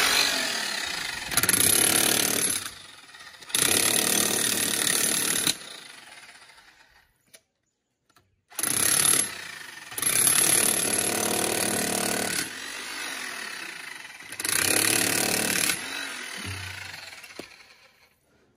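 Corded electric demolition hammer with a pointed chisel bit hammering into hard ground, run in several bursts of one to three seconds with short pauses, including a brief silent gap near the middle.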